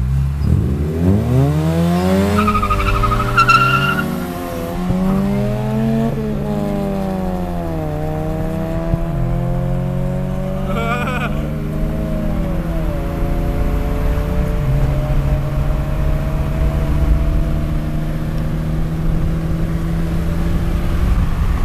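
Car engine accelerating hard from a standing start, its pitch climbing and dropping back at each upshift, four times in the first eight seconds, then holding a steady high-speed run, heard from inside a car. A short high-pitched whine comes about two and a half seconds in and again near eleven seconds.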